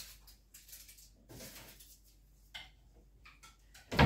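Scattered light knocks and clicks of things being handled in a kitchen, with a sharper, louder knock near the end.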